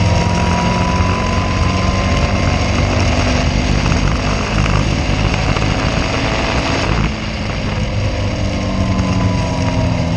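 Caterham race car's engine running hard, heard onboard over wind and road noise. The pitch holds fairly steady and rises slightly, then about seven seconds in the sound drops suddenly and the engine carries on at a lower level.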